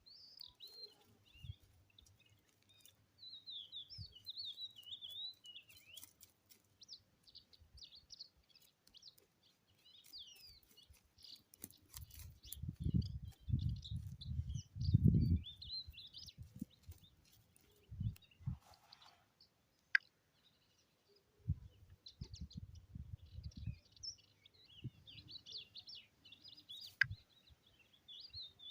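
Small birds chirping and twittering in quick high notes, with clusters of low thumps and rumbles about halfway through and again a little later.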